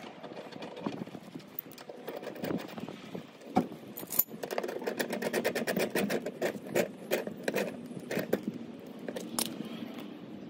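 Tongue-and-groove pliers working a threaded fitting on black iron gas pipe: a run of quick metal clicks, clinks and scrapes, busiest from about four to nine seconds in, over rustling close by.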